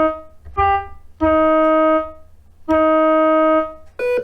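Morse code for the letter Y (dah-dit-dah-dah) played as keyboard-like musical tones: the end of a long tone, a short, slightly higher tone, then two long tones. Another tone starts right at the end.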